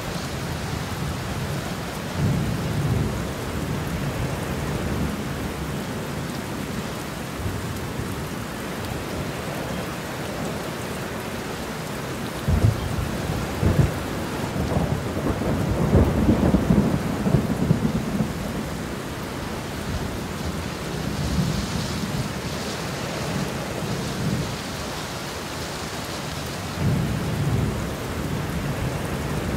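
Heavy rain pouring steadily, with rolls of thunder. A short rumble comes a couple of seconds in. The loudest peal, with two sharp cracks, starts a little before the middle and rolls on for about five seconds, and another rumble comes near the end.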